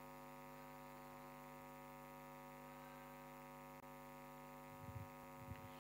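Near silence: a faint steady electrical hum, with a few soft low thumps near the end.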